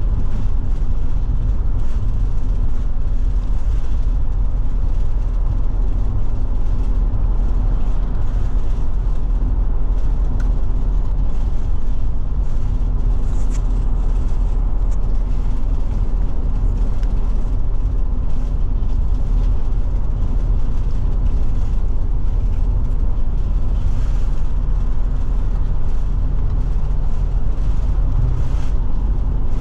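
Forest River Forester motorhome cruising on the highway: a steady low engine and road drone with tyre noise and a constant hum, heard from inside the cab.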